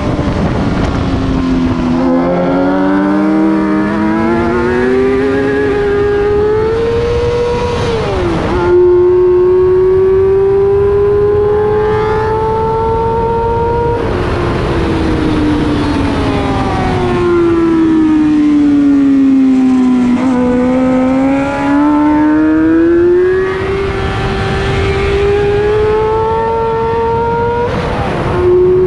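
Racing sport motorcycle's engine at high revs, climbing steadily through the gears with sudden drops in pitch at the upshifts, about 8 seconds in and near the end, and sweeping down under engine braking in the middle before pulling again, over loud wind rush. Its gearbox has lost fourth gear, so upshifts go straight from third to fifth.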